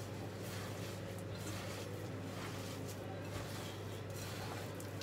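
Hands kneading a raw ground beef and pork mixture with egg and breadcrumbs in a glass bowl: uneven soft, wet squishing. A steady low hum runs underneath.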